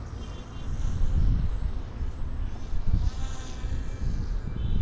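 Radio-controlled model airplane's motor and propeller buzzing in flight, swelling and fading as it passes, over a gusting low rumble of wind on the microphone.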